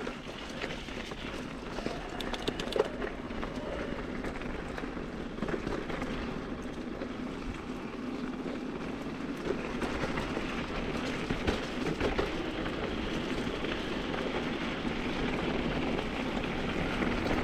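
Mountain bike rolling down a dirt singletrack: continuous tyre noise over the ground with the bike rattling, a few sharp clicks about two to three seconds in, getting a little louder toward the end.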